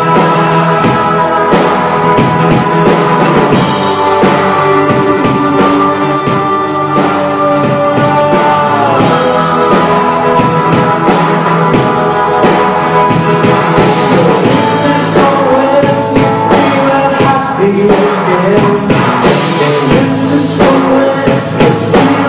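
Rock band playing live and loud, amplified guitars with singing.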